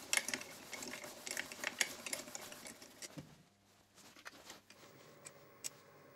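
Rapid light clicking and ticking from a small milling machine's table being cranked by its handwheel, for about three seconds. After that it goes quiet except for a faint steady hum and a few isolated ticks.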